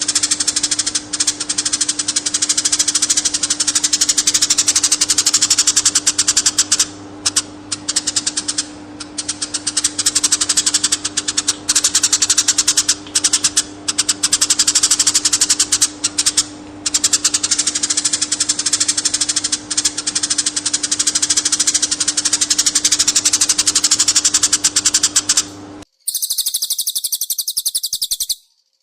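Songbird singing a fast, unbroken run of high chirps and trills with a few short breaks, over a steady low hum. Near the end it cuts to about two seconds of a thinner, higher-pitched chatter.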